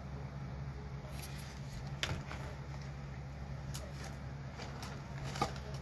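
A steady low hum runs underneath a few soft clicks and rustles as packaged store items are handled.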